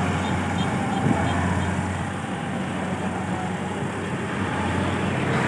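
Kubota tracked combine harvester running steadily as it drives through the paddy cutting rice: a continuous diesel engine hum with the dense mechanical noise of the harvesting machinery.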